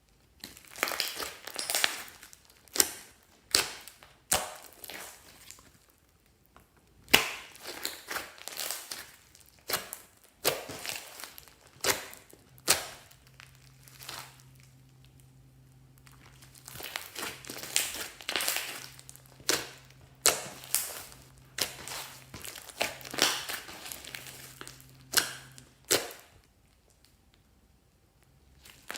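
Glossy slime being squished and pressed by hand, giving irregular bursts of crackly squishing and sharp pops. There are short pauses about six seconds in and about ten seconds in.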